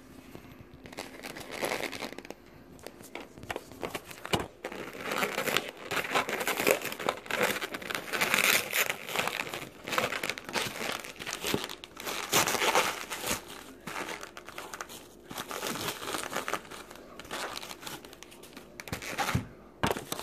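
Plastic takeout food packaging crinkling and rustling as it is handled, in dense irregular bursts that are loudest in the middle.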